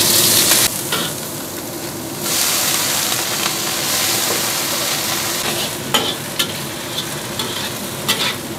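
Garlic sizzling in hot oil in a wok, then water spinach stir-fried, the sizzle dropping off briefly and coming back loud about two seconds in. A metal spatula stirs the greens, scraping and clicking against the wok in the second half.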